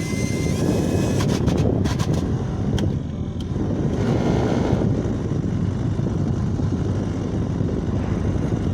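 Smart Fortwo 451 cabin blower fan running with a loud rush and irregular clicks and rattles: the strange noise it makes when switched on, which led the owner to remove the fan.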